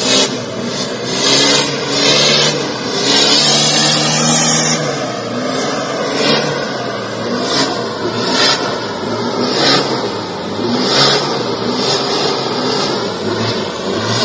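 Toyota Land Cruiser 70-series diesel engine revving hard in repeated surges, rising and falling in pitch, as the vehicle strains to climb out of deep mud on its winch line.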